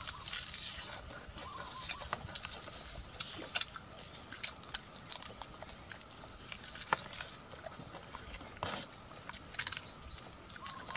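Eating sounds from biting and chewing roasted duck meat off the bone: wet chewing with many short lip smacks and clicks, and several louder sharp smacks through the middle.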